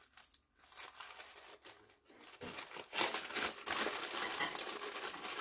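Packaging crinkling and rustling as a parcel is opened by hand, fainter at first and louder over the last couple of seconds.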